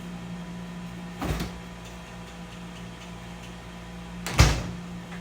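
Two knocks about three seconds apart, the second louder, over a steady low hum.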